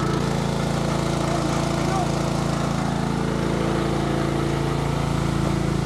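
Small Honda petrol engine of a portable water pump running steadily at a constant speed while it pumps water out of the ditch.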